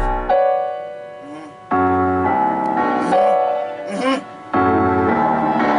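A beat playing with its drums dropped out: sustained piano-like keyboard chords that pause and come back, with a bass note entering twice.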